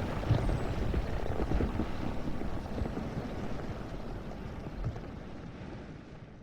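Sound-designed volcano eruption: a deep, noisy rumble with scattered low thumps that gradually dies away, fading out at the end.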